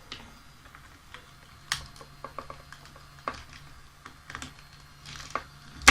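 Scattered sharp clicks and taps from handling small electrical gear: plugs, switches and cables. A faint steady low hum starts with a click about two seconds in and stops near the end, where the loudest click falls.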